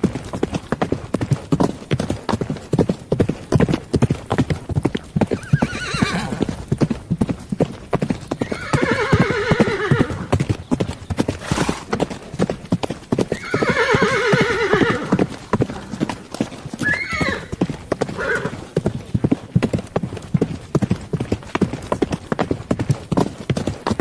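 Horse hooves clopping at a walk in a steady run of knocks. Horses whinny over it: two long, quavering neighs, one about nine seconds in and another about fourteen seconds in, with shorter calls between them.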